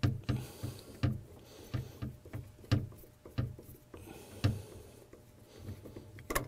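Irregular sharp clicks and light knocks as screws are fitted back into a VW Eos convertible-top hydraulic pump unit by hand.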